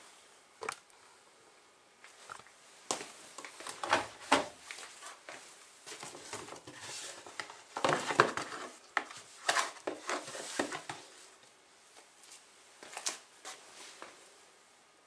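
Irregular handling noises: scattered clicks and knocks with spells of crinkling rustle, the busiest a few seconds in and again around the middle, with no machine running.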